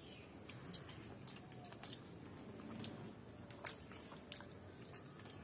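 Faint squishing and light clicks of fingers mixing biryani rice in a steel bowl, with quiet chewing.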